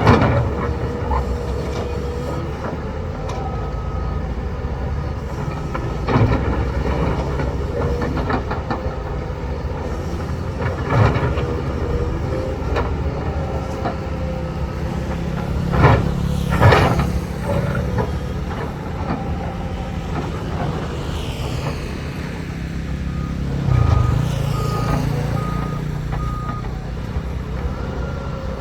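Heavy diesel construction machinery running steadily, with several sharp clanks and knocks spread through it. Near the end comes a short run of evenly spaced beeps.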